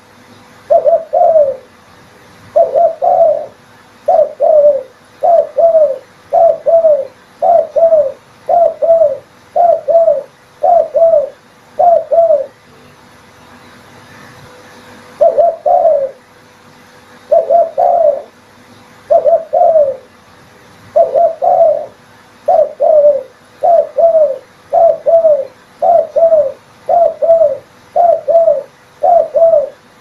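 Spotted dove cooing: a long run of short double-noted coos, about one a second, breaking off for two or three seconds midway before starting again.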